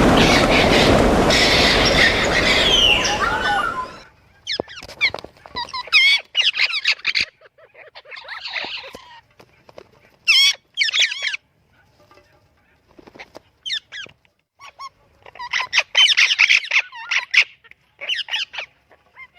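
A loud rushing noise with calls over it that cuts off suddenly about four seconds in, followed by a parrot's squawks and whistles in short calls separated by pauses.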